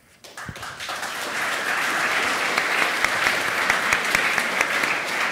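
Audience applauding, a dense mass of hand claps that starts just under half a second in, swells over about a second and then holds steady.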